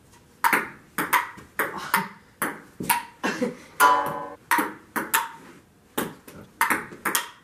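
Table tennis rally: the plastic ball clicking off the table and the rubber paddles, about two hits a second, each click ringing briefly. A short pitched sound breaks in about four seconds in.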